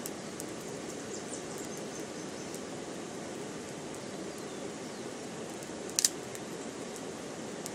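Small twig campfire burning with faint crackles, and a sharp snap about six seconds in as a stick is pushed into it, over a steady low rushing noise.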